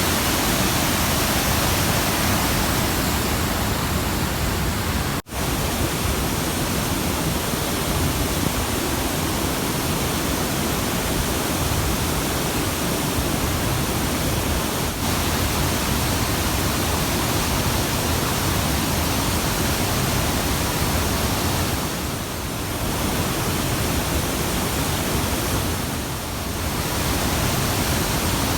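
Steady rush of a large waterfall on the Kaveri river, white water crashing close by. The sound cuts out for an instant about five seconds in.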